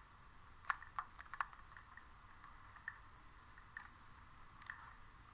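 Faint, irregular small clicks and ticks, a quick cluster about a second in and a few single ones later, over a thin steady hiss.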